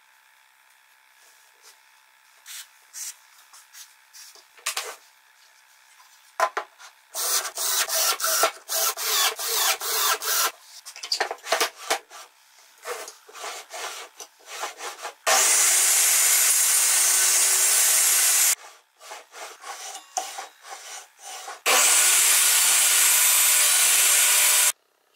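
Wooden sled rubbing and sliding over the cast-iron table saw top in a run of short strokes, then two loud steady stretches of a few seconds each from the running table saw, each starting and stopping abruptly.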